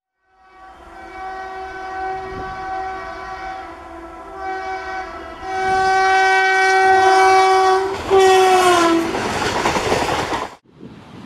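Indian Railways electric locomotive's horn sounding a chord in several blasts as the train approaches, the last one falling in pitch as the engine passes. The rush and rail clatter of passenger coaches going by follows, and cuts off suddenly near the end.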